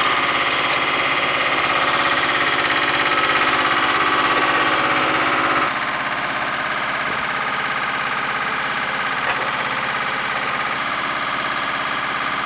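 Jet turbine running steadily on an airfield flight line: a high, constant whine over a rushing roar. About halfway through it gets a little quieter and the whine changes.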